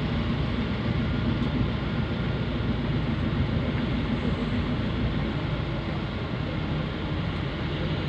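Street traffic heard from a moving vehicle: a steady low engine and road rumble with no distinct events.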